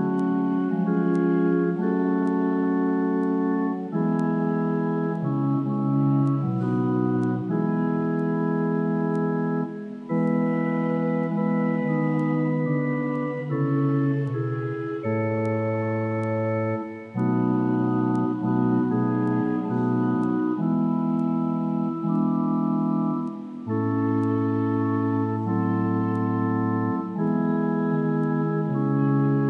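Church organ playing slow, sustained chords that change every second or two, without a break.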